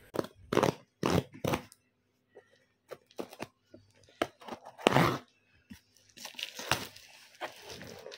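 A delivery parcel being torn open by hand: four quick tearing strokes, scattered smaller rips, a louder rip about five seconds in, then the wrapping crinkling near the end.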